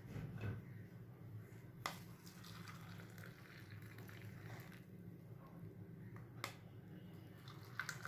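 Hot milk tea being poured faintly from a saucepan through a strainer into cups, with two light clinks about two seconds in and again near six and a half seconds.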